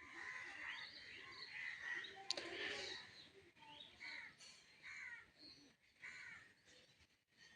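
Faint bird calls: short chirping calls, several in a row about once a second in the second half, with one sharp click about two seconds in.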